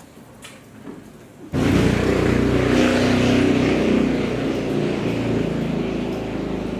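A motor starts suddenly about one and a half seconds in and runs steadily with a low hum, easing off slowly toward the end.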